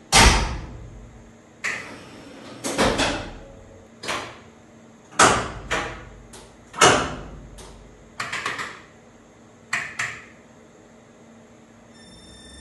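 Electric locomotive's switchgear clacking in its equipment cabinets: sharp metallic clacks, some single and some in quick clusters of two or three, each ringing briefly in the enclosed machine room. Near the end a steady high whine begins.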